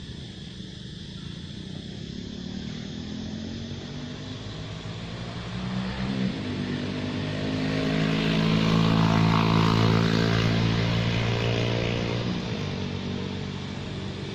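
A motor vehicle passing by: its engine grows louder for several seconds, is loudest about two-thirds of the way in, then fades away.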